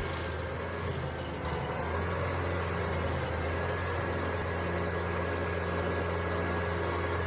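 An engine running steadily at an even low pitch, with no change in speed.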